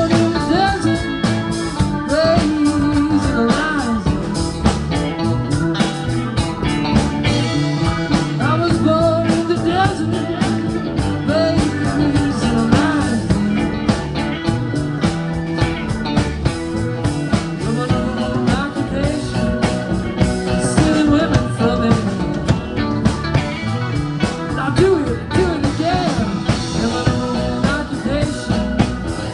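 Live rock band playing a blues-rock number: electric guitars, bass, drum kit and keyboard, with a man singing the lead vocal.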